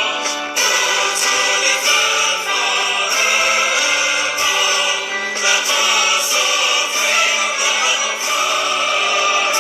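Choral music: a choir singing held notes that change every second or so, at a steady level.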